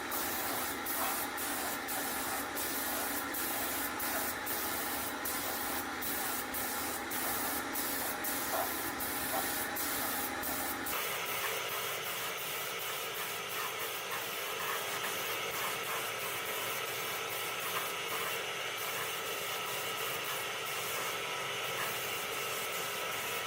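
Pneumatic paint spray gun hissing steadily as it atomizes paint, with faint regular ticking during the first half. The hiss changes in tone abruptly about eleven seconds in.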